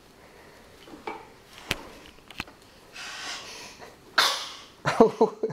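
Two light knocks, then breathy huffs and a short vocal sound near the end.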